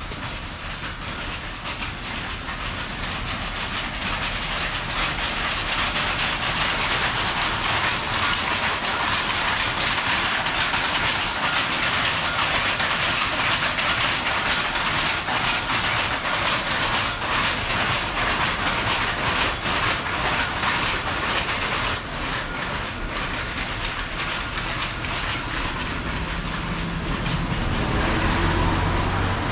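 Mechanical silk-weaving looms clattering in a rapid, continuous rhythm, the sound of Tango chirimen crepe being woven. It grows louder over the first few seconds, holds, then eases off, and a low hum joins near the end.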